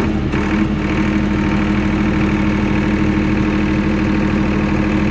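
A 30 kVA diesel generator's engine running steadily at an even pitch, freshly started.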